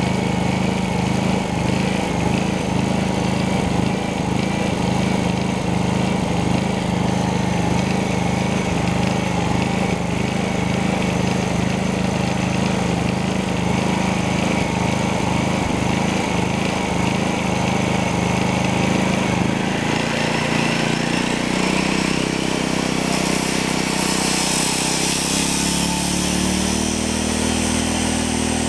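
XG-SF3700 digital inverter generator running steadily with no load. About two-thirds of the way through, an Ozito 230 mm angle grinder comes on with a high whine, and the generator's engine climbs in pitch as it speeds up to carry the roughly 2 kW load.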